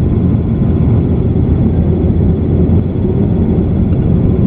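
Steady low rumble of engine and airflow noise heard inside the cabin of an Airbus A330-200 airliner.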